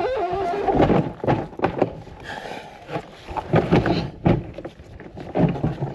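A big rock being set down and shifted into place: clusters of knocks and thumps about a second in, again around four seconds, and near the end.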